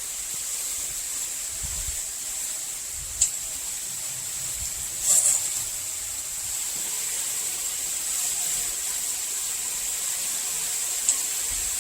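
Handheld shower head spraying water: a steady hiss, with a few short clicks about three and five seconds in and again near the end.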